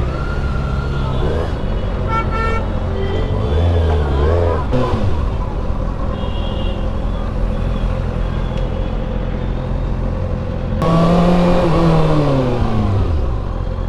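Kawasaki ZX-6R's inline-four, through a full-system aftermarket exhaust, running steadily while riding in traffic. About eleven seconds in it revs up sharply, and its note then falls steadily as it winds down.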